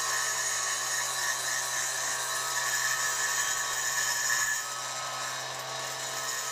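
High-speed electric rotary grinder running steadily while grinding metal, as when porting a two-stroke cylinder. Its sound drops a step in level about four and a half seconds in.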